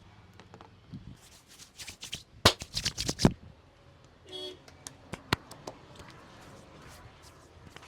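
A quick run of about seven sharp hand slaps in under a second, typical of the percussive clapping strokes of an Indian head massage, then a single sharp click a couple of seconds later.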